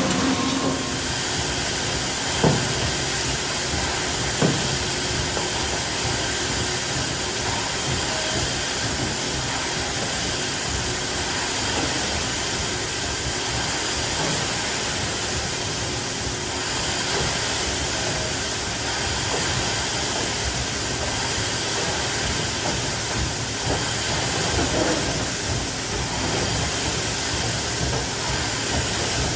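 Farm vehicle engine running steadily under a constant hissing noise, with two short knocks a few seconds in.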